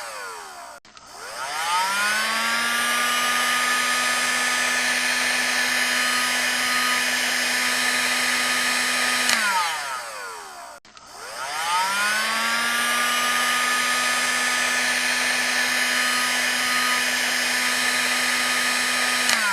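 Hair dryer on its high setting, switched on twice. Each time the motor spins up with a rising whine, runs steadily for about eight seconds with a rush of air, then winds down with a falling whine when switched off.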